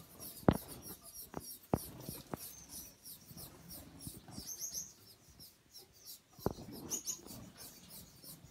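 Small cage finches chirping: a constant stream of very high, thin, squeaky calls, with a few sharp knocks, the loudest about half a second in and another near the end.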